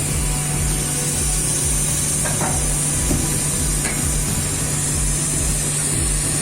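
Steady, loud industrial machinery noise: a constant low hum under a high hiss, with a pulsing low rumble and a few faint knocks.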